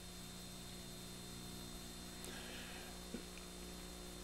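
Faint steady mains hum with hiss on the soundtrack, and a small click about three seconds in.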